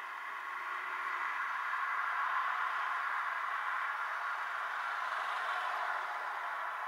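Steady hiss of road traffic heard from inside a stopped car, swelling slightly as cars drive past.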